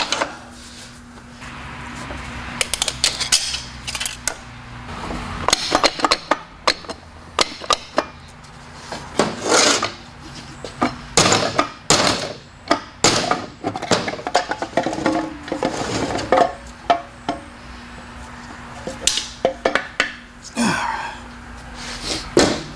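Metal parts of a TH350 automatic transmission clinking and clanking as it is taken apart by hand: irregular knocks and rattles of steel parts against the case and the steel workbench.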